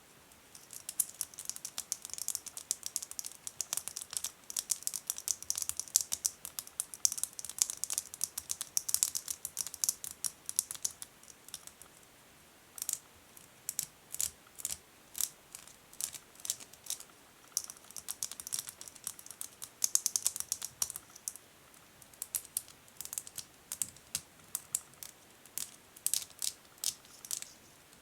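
Natural fingernails tapping and scratching on a tiny plastic bag around a contact lens case. Quick sharp taps run throughout, with stretches of dense crinkly scratching over the first ten seconds or so and again around twenty seconds in.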